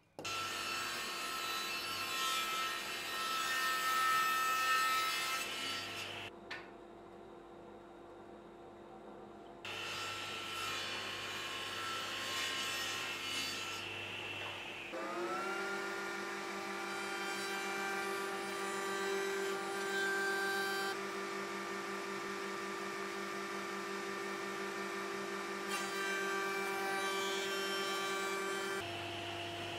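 Table saw ripping a thin hardwood strip, with a quieter break about six seconds in before it cuts again. About fifteen seconds in, a router on a router table spins up, its pitch rising, and then runs steadily as the strip is fed past the bit.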